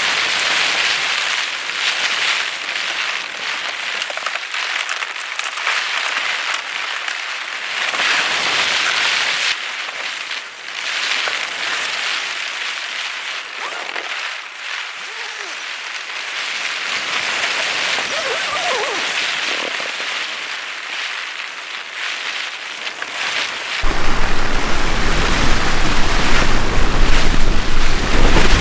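Heavy rain falling steadily, swelling and easing. About 24 seconds in, it changes abruptly to loud, rushing wind buffeting the microphone.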